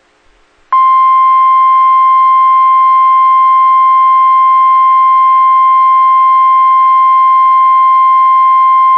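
NOAA Weather Radio warning alarm tone: a single loud, steady 1050 Hz tone that comes on abruptly under a second in and holds without a break. It is the alert signal that precedes a warning broadcast, here a severe thunderstorm warning.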